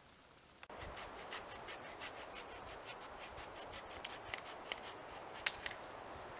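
A dead branch being worked by hand: a steady rasping scrape with many small sharp cracks of dry wood, starting suddenly just under a second in, with the loudest crack about five seconds in.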